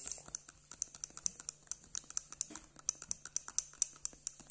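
Metal spoon stirring milk in a drinking glass, clinking rapidly against the glass several times a second as colostrum powder is stirred into water.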